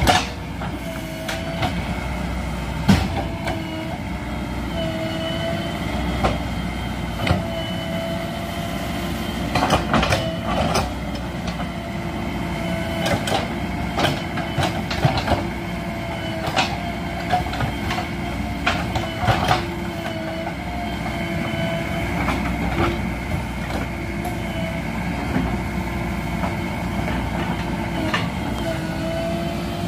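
JCB 3DX backhoe loader's diesel engine running steadily as the backhoe digs soil, with a wavering whine and frequent clanks and knocks from the arm and bucket.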